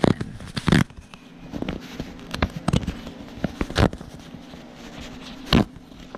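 Paper PIN mailer being torn open along its perforated side edges: irregular crackling rips and crinkles of paper handled close up, with a few sharper rips standing out.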